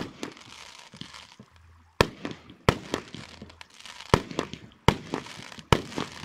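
Aerial firework shells bursting: about six sharp bangs at uneven intervals, with a crackling hiss from the glittering stars between them.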